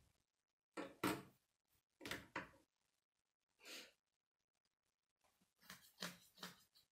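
Plastic K'nex pieces being handled and set down on a wooden table: a few faint, short clicks and clatters with quiet between them, a small cluster of them near the end.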